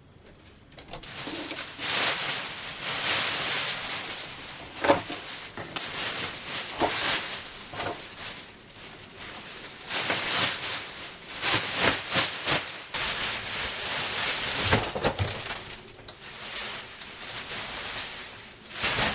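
Scraping, tearing and rustling of caravan ceiling and wall panels being pulled apart, in swelling noisy stretches broken by scattered sharp knocks, the loudest about five seconds in.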